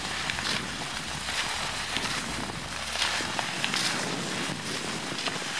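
Skis gliding over packed snow with a swish about once a second as they stride and poles plant, with wind rumbling on the microphone for the first few seconds.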